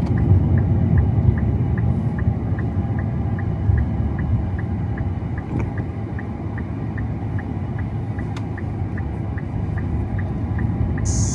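Steady low road rumble inside a moving car, with a turn signal ticking evenly about two and a half times a second.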